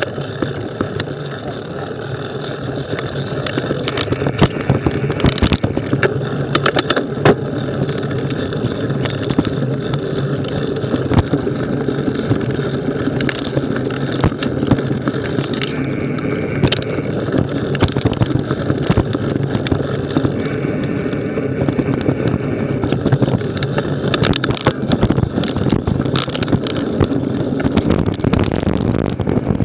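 Mountain bike ridden downhill on a dirt trail, heard from a camera mounted on the bike: steady tyre rumble over the ground with frequent sharp knocks and rattles as the bike jolts over bumps.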